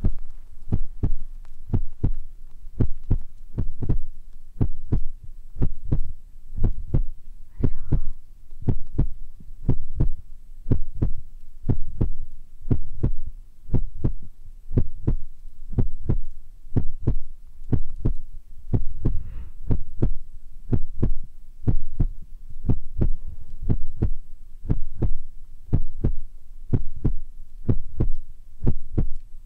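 Soft low thumps at a steady, heartbeat-like pace of about one and a half a second, each with a faint click on top.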